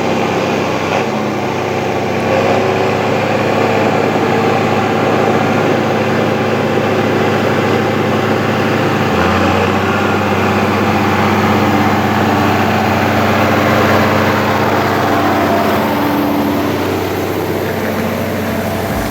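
Combine harvester's Caterpillar C13 six-cylinder diesel running steadily, with a shift in its low tone about halfway through.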